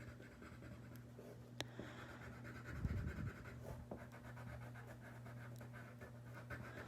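Faint scratching of a colored pencil coloring on paper in quick back-and-forth strokes, over a low steady hum.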